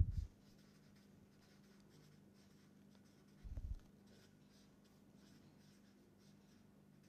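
Marker pen writing on paper: faint, short scratching strokes as the letters are drawn. There is a soft low thump about three and a half seconds in, over a faint steady hum.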